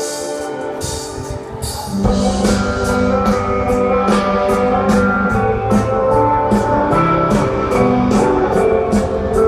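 Live band playing an instrumental passage led by guitar. About two seconds in, the drums and low end come in fully and the music grows louder, over a steady cymbal beat.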